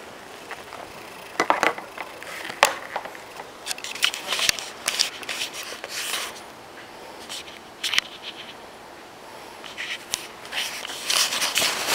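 Handling noise from a handheld camera: rustling and scraping against clothing, with scattered short clicks and knocks that cluster near the end.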